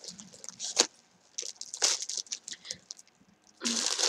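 Clear plastic packaging crinkling and rustling in short bursts as it is handled and pulled open, with a louder stretch of crinkling near the end.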